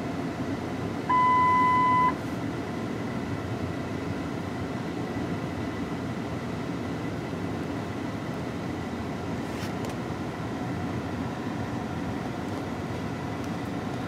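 A single electronic beep about a second in, lasting about a second, over a steady low noise.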